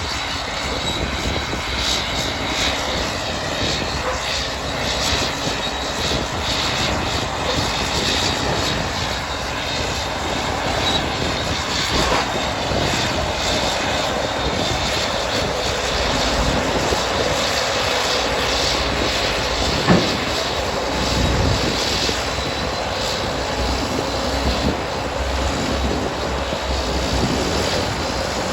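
Classic Caterpillar D8 crawler tractor's diesel engine running steadily while it pulls a scraper box stripping soil, with a thin high whine over it. A single sharp knock comes about twenty seconds in.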